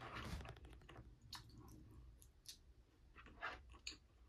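Faint close-up chewing of a mouthful of curry, with a few light clicks and scrapes of a plastic spoon against a plastic takeaway bowl.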